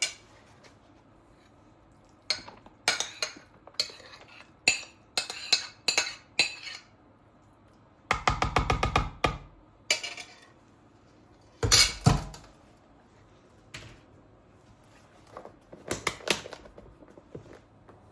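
Kitchen dishes and utensils clinking and knocking in short bursts. About 8 seconds in there is a fast rattling run of ticks, and the loudest clatter comes around 12 seconds in.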